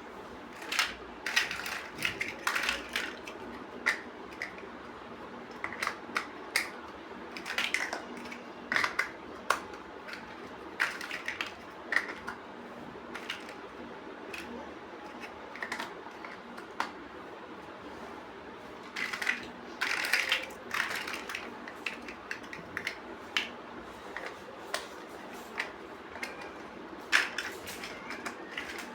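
Plastic building bricks clicking and clacking as they are handled and pressed together. The sharp clicks are irregular and come in clusters, with a quieter stretch in the middle. A steady low hum runs underneath.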